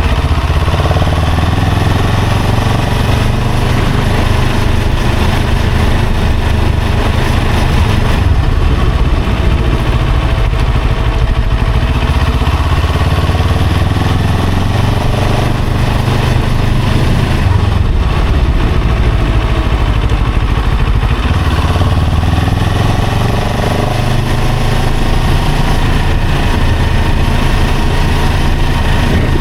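Motorcycle engine running while the bike is ridden through traffic, a steady loud sound with a heavy low rumble and faint wavering engine tones.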